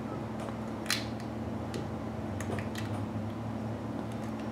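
Scalpel blade paring the sides of a small plastic button piece: a few short scrapes and clicks, the sharpest about a second in, over a steady low hum.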